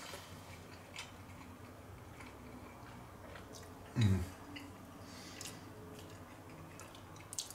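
A person quietly chewing a sandwich, with faint mouth clicks and smacks, and a short low thump about four seconds in.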